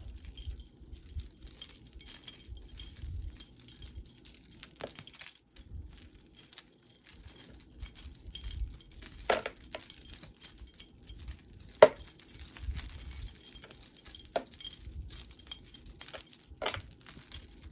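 Beads and chain of a multi-strand necklace clinking as it is handled and sorted, with scattered sharp clicks, the loudest about twelve seconds in.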